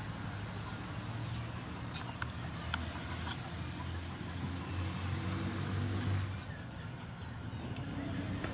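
A low engine hum that swells in the middle and eases off about six and a half seconds in, with two faint sharp clicks a little after two seconds in.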